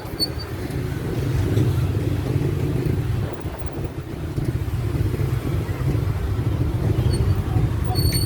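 Steady, low, noisy rumble of a moving vehicle.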